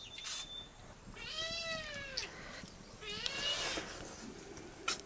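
Two drawn-out animal cries, the first starting about a second in and the second about three seconds in, each rising and then falling in pitch.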